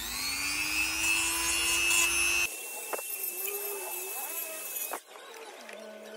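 Small rotary engraving tool running against wood: its whine rises as it spins up, then holds steady over a high, hissing grind. It cuts off abruptly about two and a half seconds in, and fainter wavering tones follow.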